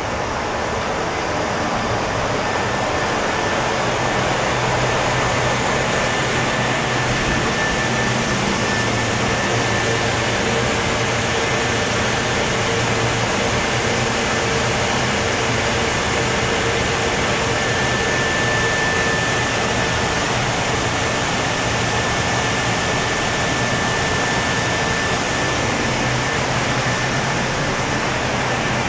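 Steady hum and rush of a standing Meitetsu electric train's rooftop air conditioners and auxiliary equipment, with a thin steady whine in it.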